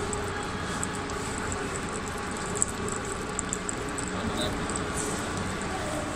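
Hydraulic oil press running while pressing moringa seeds: a steady mechanical hum and hiss, with a few faint clicks.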